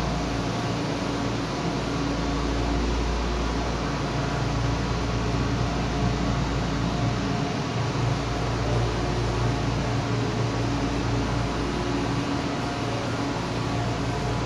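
Steady hum and fan noise from a standing Nagano Electric Railway 1000-series electric train's air conditioning and auxiliary machinery, with a low rumble underneath.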